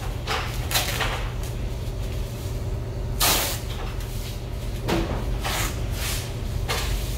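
Masking tape being pulled off the roll or peeled from the panel in a series of short tearing rips, the longest a little past three seconds in. Under them runs the steady low hum of the spray booth's ventilation.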